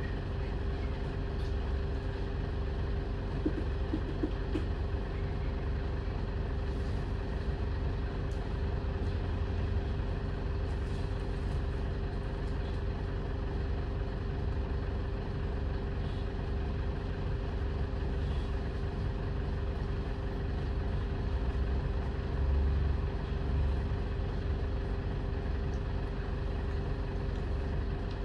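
Optare Solo SR single-deck bus running: a steady diesel engine drone with a low rumble.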